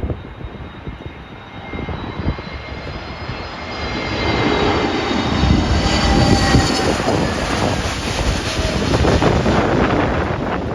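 Jet airliner on final approach passing low overhead. Its engine whine falls gently in pitch and grows to a peak about six seconds in. Gusty wind buffets the microphone.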